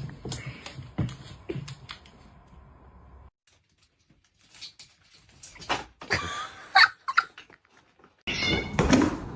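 Pet cat sounds: knocks and rustling, then short meows a little past the middle, with the sound stopping and restarting abruptly twice.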